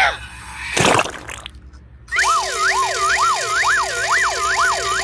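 A short whoosh about a second in, then a warbling siren-like tone that sweeps up and down about twice a second over a steady hiss, starting about two seconds in.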